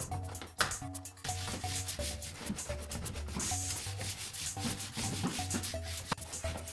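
Background music with repeated short notes over a pulsing bass line, mixed with a rubbing, scraping noise.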